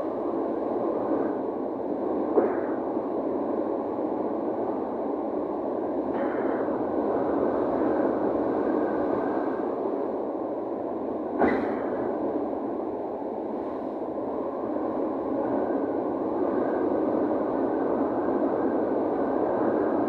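Steady rush of wind over the open sea, heard from high up on a cruise ship, with two brief knocks, one about two seconds in and one near the middle.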